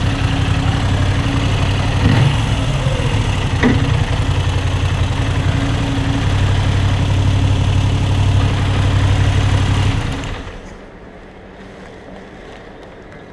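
Moto Guzzi V7 III's warm, air-cooled transverse V-twin idling steadily in neutral, then cutting off about ten seconds in.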